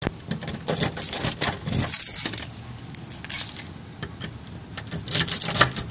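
A bunch of keys jangling and clinking at a door's knob and deadbolt, a run of short metallic rattles as the door is unlocked.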